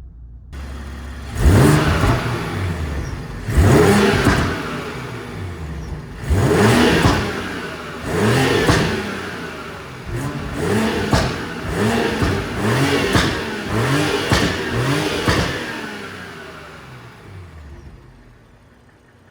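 BMW X4 M40i's turbocharged inline-six with an aftermarket Supersprint exhaust, revved again and again: about a dozen sharp rises and falls in engine pitch, spaced out at first and then coming quicker. The sound fades away near the end.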